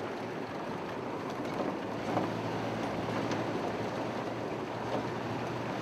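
Steady running noise of a vehicle heard from inside, with a low engine hum and the odd small knock from the rough road.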